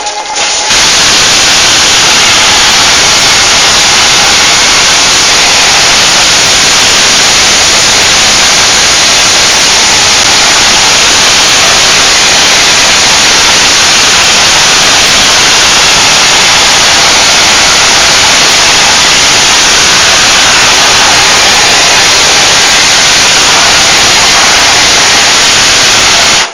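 Water spray hissing steadily against a screen-printing mesh, washing the unexposed emulsion out of the stencil. A loud, even hiss that starts just under a second in and cuts off suddenly.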